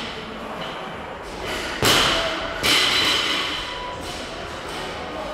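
Loaded barbell with rubber bumper plates dropped onto a gym floor: a heavy thud about two seconds in, then a second thud with a metallic ringing as it bounces and settles.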